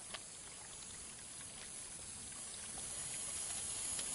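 Steady outdoor background hiss with a few faint clicks, swelling somewhat louder in the second half.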